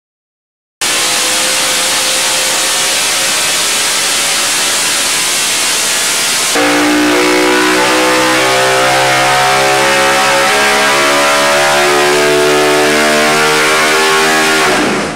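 Small-block Chevy V8 race engine running loud at full throttle, revving past 9,000 rpm. It gets louder about halfway through and cuts off abruptly near the end.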